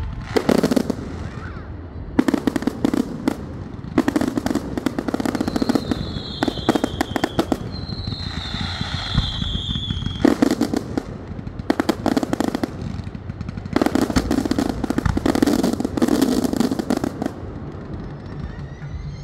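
Fireworks going off in repeated volleys of rapid crackling pops, each lasting a second or so with short gaps between. A high whistle sounds twice around the middle, each about a second and a half long.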